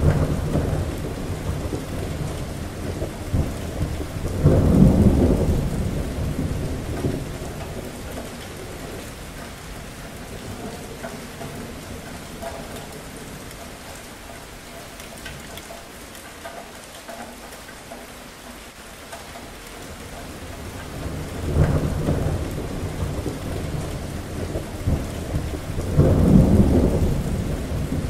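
Steady rain with rolling thunder. Deep rumbles swell up near the start, about five seconds in, and twice near the end, with a quieter spell of rain alone in between.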